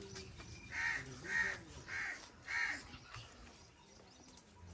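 A bird calling four times in quick succession, short calls evenly spaced about half a second apart.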